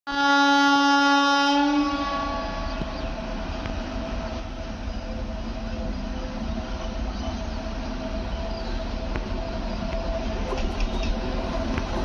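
Train horn sounding one long blast of about two seconds, then the steady rumble and whine of two electric freight locomotives approaching with a long train, growing slowly louder near the end.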